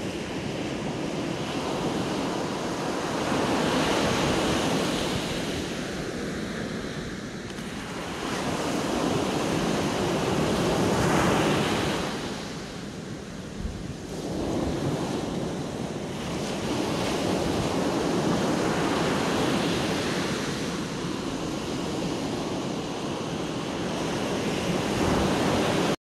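Sea surf breaking on a sandy beach and washing back, swelling and ebbing with each wave every few seconds.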